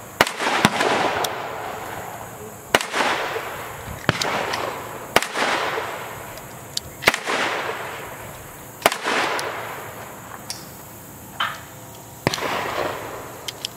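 Gunshots from other shooters on an outdoor range: about a dozen sharp reports at irregular intervals, each followed by a long echoing tail.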